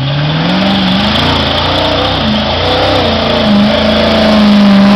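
Lifted mud truck's engine revving hard under full throttle as it pulls through the mud hole and climbs the bank. The revs rise steeply in the first second, then hold high with a few brief dips, loudest near the end, over the hiss of spinning tires and churned mud.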